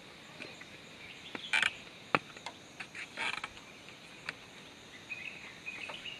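Bamboo deck slats creaking and clacking underfoot: a few sharp clicks, the loudest about two seconds in, and two short rasping creaks.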